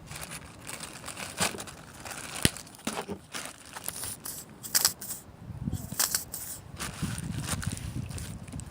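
Plastic Ziploc bag crinkling and crackling as it is handled and slime is packed into it, with irregular sharp clicks and rustles.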